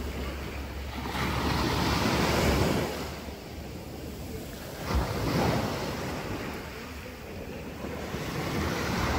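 Sea waves washing up the beach, the rush of water swelling and fading in three surges, with wind rumbling on the microphone. A brief thump about halfway through.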